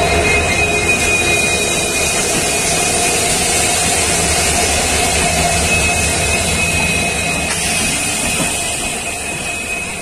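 WDG4D diesel locomotives running while standing, heard at close range from a slowly passing train, with the passing coach's rolling noise underneath. Their engine noise is steady, with a steady high whine, and eases a little near the end as the locomotives fall behind.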